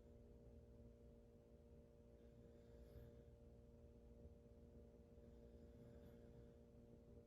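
Near silence: a steady low electrical hum, with the faint breaths of a sleeping woman, open-mouthed, recurring about every three seconds.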